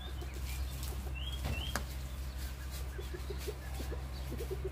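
Freshwater snail shells clicking against each other and a plastic mesh bag rustling as snails are packed by hand, over a steady low hum. Two short bird chirps come about a second and a half in.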